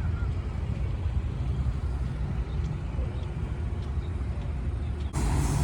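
A motor vehicle engine idling as a steady low rumble, and the background noise changes abruptly about five seconds in.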